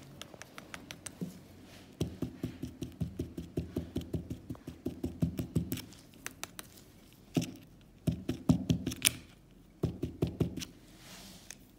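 Small paper cup of freshly poured dental plaster tapped repeatedly on the work surface: a quick run of taps, about five a second, for several seconds, then a few shorter bursts of tapping. The tapping brings the air bubbles up out of the wet plaster.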